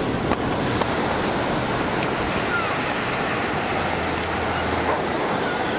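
Ocean surf washing onto a sandy beach: a steady, even rushing of waves.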